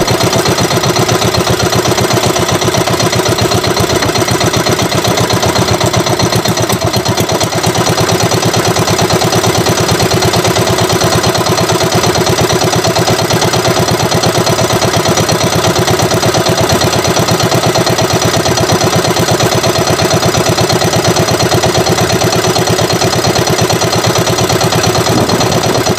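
Small outrigger fishing boat's engine running steadily, a fast even chugging that stays the same throughout.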